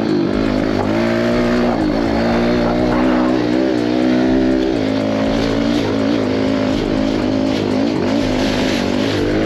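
Kawasaki dirt bike engine running while being ridden, its note rising and falling with the throttle, with a drop about two seconds in and another near the middle.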